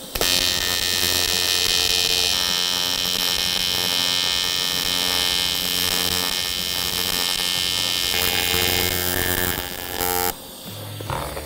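AC TIG welding arc on aluminum, powered by an Eastwood TIG 200 LCD inverter welder, giving a steady electric buzz through a full weld bead. It strikes suddenly at the start, its tone shifts slightly a couple of times, and it cuts off about ten seconds in when the bead is ended.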